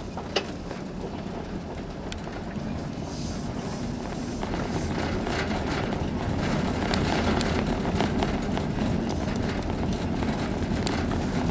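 Vehicle driving on a paved road, heard from inside the cab: steady engine and tyre noise with scattered rattles and clicks. It gets louder about four seconds in, and there is one sharp click just after the start.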